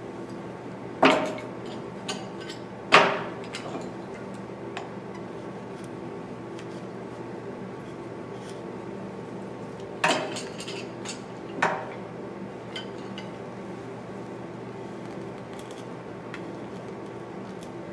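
Hand-carving of a white cedar decoy body with knife and chisel: faint ticks of cutting, broken by four sharp clinks of hard tools, about a second in, at about three seconds, and two more close together around ten to twelve seconds.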